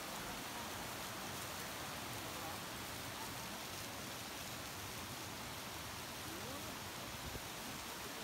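Shallow stream water rushing and rippling over stones, a steady hiss.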